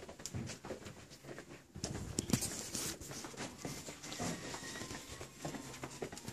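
Rustling, scuffing and scattered taps of a handheld phone being moved about close to the microphone, loudest in a scuffling stretch about two seconds in.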